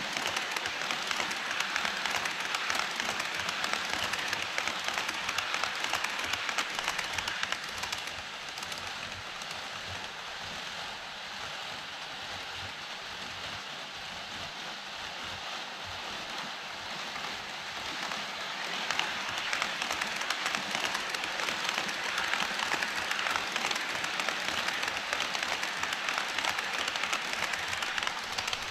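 HO-scale model train running on KATO Unitrack, its wheels and running gear making a dense, rapid clatter much like rain. The sound eases off for about ten seconds in the middle, then grows louder again as the train comes closer.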